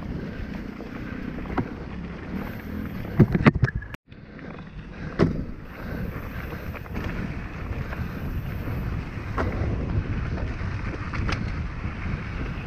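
Enduro mountain bike rolling fast down a dirt forest trail: wind rushing over the camera microphone and tyre noise, broken by sharp knocks and rattles as the bike hits bumps, loudest in a cluster about three seconds in. The sound cuts out for an instant just after four seconds.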